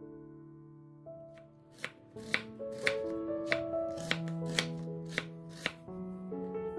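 Chef's knife slicing an onion into thick wedges on a wooden cutting board: about a dozen sharp knocks of the blade on the board, a couple a second, starting a little over a second in and stopping near the end, over soft background music.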